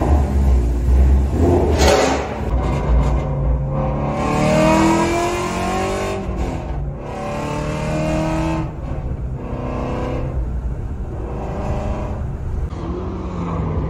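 Shelby GT350R's 5.2-litre flat-plane-crank V8 running, heard from inside the cabin: after a deep rumble and a sharp burst about two seconds in, it accelerates with the revs climbing and dropping back several times as the manual gearbox, fitted with a new twin-disc clutch, is shifted.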